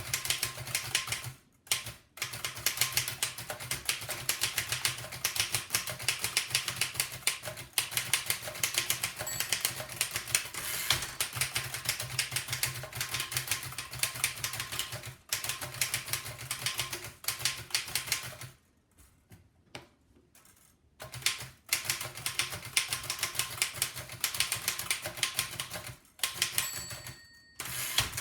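1905 Fox No. 3 upstrike typewriter being typed on fast: a dense, rapid patter of key and typebar strikes, broken by a short pause and by a longer pause of about three seconds. A short ringing tone sounds near the end.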